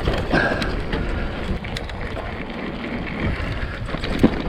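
Mountain bike riding over a rough trail: tyres rolling over dirt and rock with wind on the microphone, and the bike rattling and knocking over bumps, with a sharper knock near the end.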